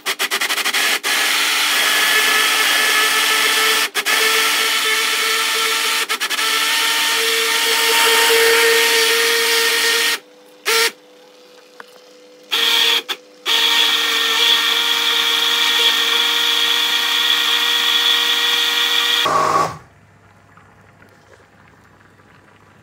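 Personal bullet-style blender motor running at full speed with a steady high whine, pureeing cooked cauliflower into mash. About halfway through it cuts out and restarts in a few short pulses, then runs steadily again and stops near the end.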